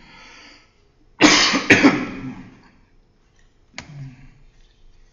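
A person coughing: two loud coughs in quick succession about a second in, then one shorter cough a few seconds later.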